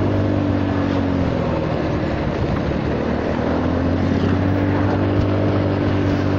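Honda Forza 300 scooter's single-cylinder engine running at cruising speed through an aftermarket exhaust with a silencer insert fitted, over steady wind and road rush. The engine note eases about a second and a half in and picks up again a second later.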